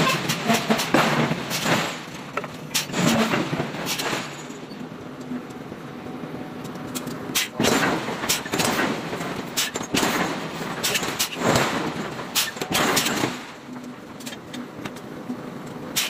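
Irregular sharp metal knocks and clanks of hot steel forging work, coming in clusters over a rough workshop din.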